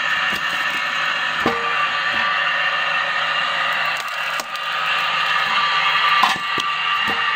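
Homemade wood-splitting machine running with a steady mechanical whine from its drive and gearbox, broken by a few sharp knocks and cracks of wood being split and knocked against the steel tray as a pine log is fed to the wedge.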